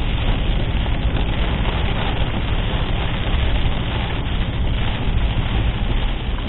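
Steady road and engine drone of a car being driven, heard from inside the cabin, with a constant hiss over it.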